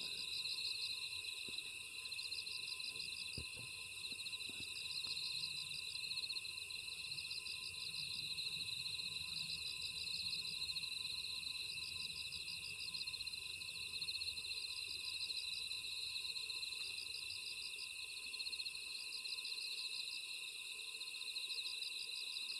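Night chorus of crickets and other grass insects: steady high trilling, with one insect's pulsed chirp repeating about every two seconds.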